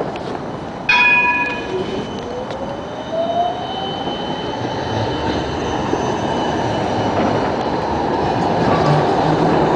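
A Siemens Combino low-floor tram approaching and rolling past on street rails. Its electric drive whines with a pitch that rises over several seconds as it speeds up, and the rolling noise grows louder as it nears. About a second in, a bell rings once and dies away within a second.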